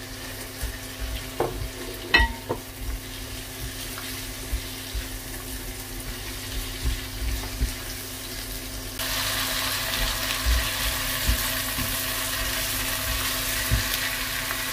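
Sliced shallots, chili and spices sizzling in hot oil in a nonstick wok while a silicone spatula stirs them, with a couple of light knocks of the spatula about two seconds in. About nine seconds in the sizzle suddenly gets louder and hissier.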